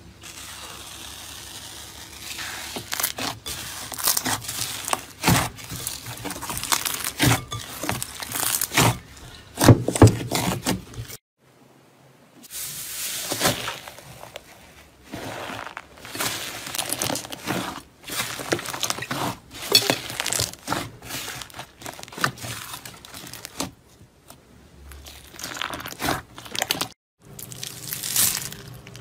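Slime being squeezed, stretched and poked by hand, giving dense crackling, crunching and tearing sounds, in several short clips separated by brief silent gaps.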